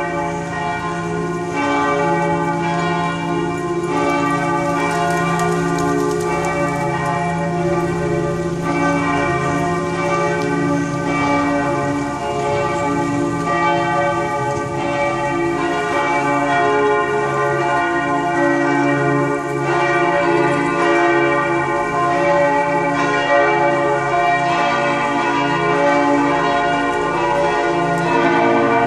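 Church bells pealing, several bells at different pitches struck in turn so that their strokes overlap into one continuous, unbroken ringing.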